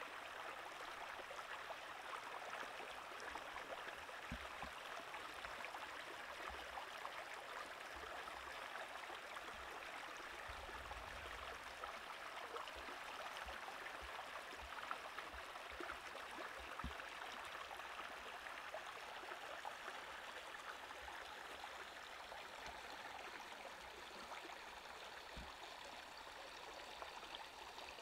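Shallow stream running over rocks, a steady rushing and babbling of water, with a few faint low knocks now and then.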